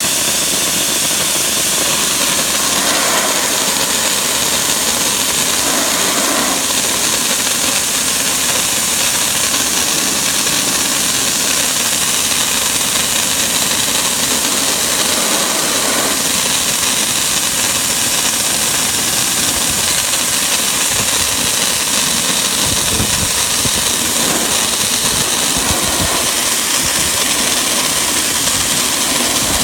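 Dry ice blasting nozzle firing a continuous high-pressure stream of compressed air and dry ice pellets against brick masonry to strip environmental staining: a loud, steady hiss. Some low rumbling comes and goes in the last few seconds.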